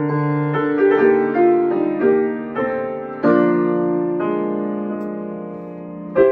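Grand piano played solo: struck chords and a moving melody, with a full chord about three seconds in left to ring and slowly fade before a loud new chord near the end.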